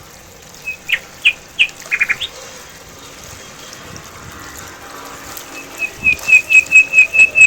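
A bird calling: a few sharp chirps about a second in, then near the end a fast run of repeated notes, about five a second, growing louder.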